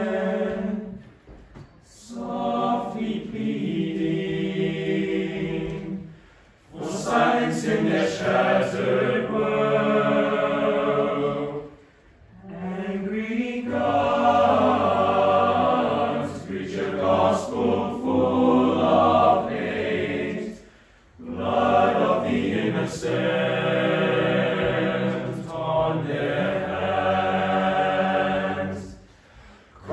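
Teenage boys' choir singing a cappella in several parts, in long phrases broken by short pauses; deeper bass notes join about halfway through.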